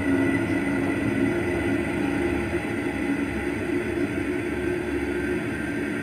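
Recorded sonar audio of a torpedo fired from a submarine, played back through a loudspeaker: a steady low rumble with rushing noise as the torpedo leaves the tube and runs.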